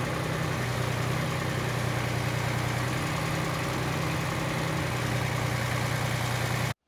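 Small tractor's engine running steadily while its front lift raises a wooden platform loaded with a solar panel. The sound cuts off abruptly near the end.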